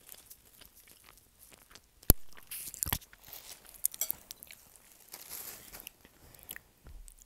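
Close-miked crunching and crackling picked up by an earphone microphone, coming in short bursts, with a sharp click about two seconds in as the loudest sound.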